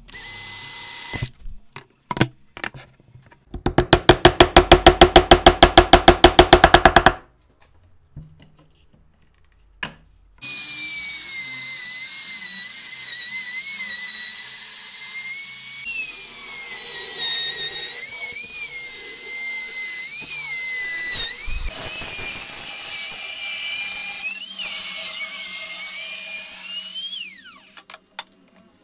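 A cordless drill whines briefly and is followed by a few seconds of rapid even pulsing, about ten a second. Then a compact trim router runs at high speed for about seventeen seconds, cutting a circle in a wood panel; its whine dips in pitch again and again as the bit bites under load. Near the end it is switched off and its whine falls away as it spins down.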